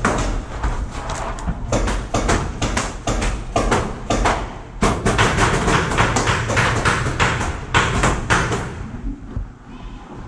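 Paintball markers firing in quick volleys: many sharp pops a second from about two seconds in until near the end, with a short break in the middle.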